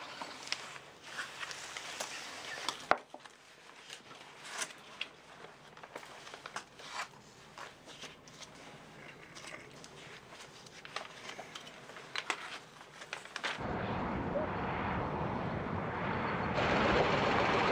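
Glossy magazine pages rustling and being turned on a table, with small clicks and one sharper knock about three seconds in. About thirteen and a half seconds in this gives way abruptly to a steady outdoor rumbling noise, which gets louder near the end.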